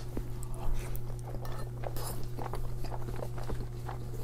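Close-miked chewing of a mouthful of cheesy spaghetti with pepperoni: many small, soft wet mouth clicks over a steady low hum.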